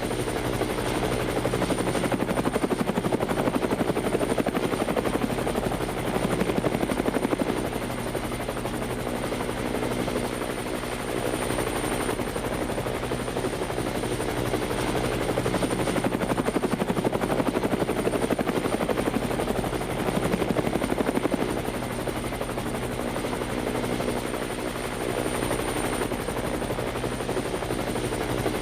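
Battery-powered toy train running on wooden track: a continuous fast mechanical rattle with a thin steady high whine from its small motor and gearbox.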